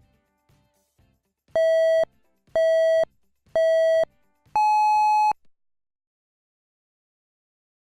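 Electronic countdown beeps: three short beeps on one pitch about a second apart, then a longer, higher fourth beep, a race-start style signal marking the start of the test.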